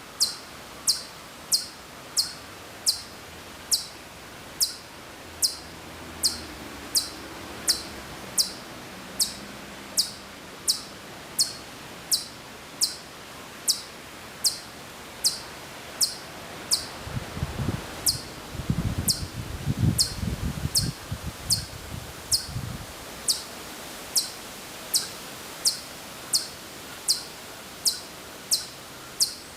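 Ezo chipmunk repeating a short, high, downward-sliding chirp about three times every two seconds, heard from some distance. A low rustling crackle comes in for several seconds past the middle.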